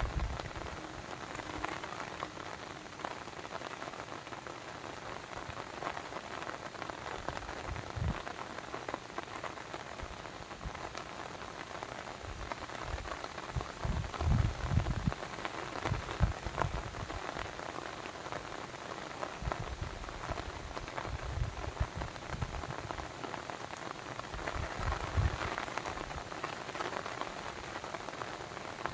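Steady pattering and splashing of water, as of rain or a babbling brook, with occasional brief low rumbles.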